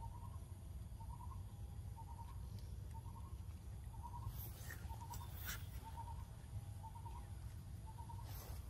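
Outdoor ambience: a short chirping call repeats about once a second over a low steady rumble. A few brief sharp clicks come about halfway through and near the end.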